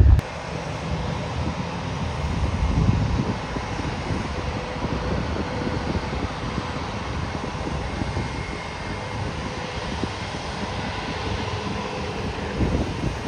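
Distant jet engines of an Airbus A321-200 on the ground: a steady rumble and hiss with a faint whine, with wind buffeting the microphone.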